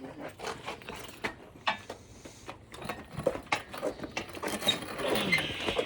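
Irregular light clicks and knocks from tools and parts being handled, with a soft hiss building near the end.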